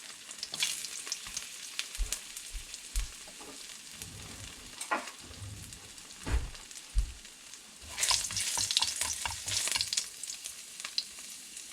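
Ginger slices sizzling and crackling in hot oil in a frying pan, with a few low thumps. The crackling grows louder about eight seconds in.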